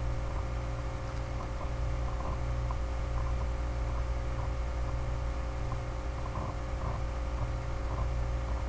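Steady low electrical hum with hiss, carrying a few faint pitched tones, with faint soft ticks scattered through it.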